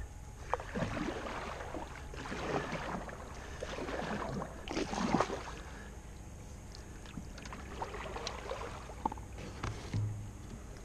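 Kayak paddle strokes dipping and splashing in river water, several strokes in the first five seconds or so, then quieter.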